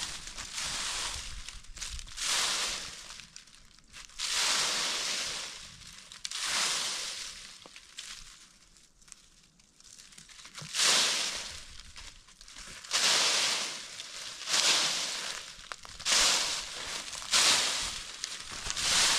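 Repeated rough crunching strokes, one every second or two, with a short lull about halfway through.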